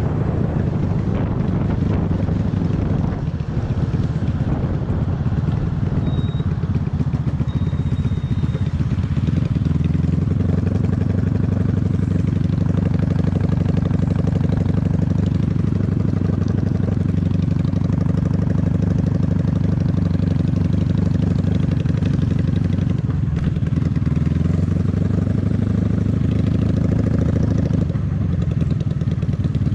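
Honda Magna VF750's V4 engine running as the motorcycle is ridden, heard from the rider's seat, with wind noise mixed in over the first few seconds. From about ten seconds in the engine note holds steady, with brief changes in throttle near the end.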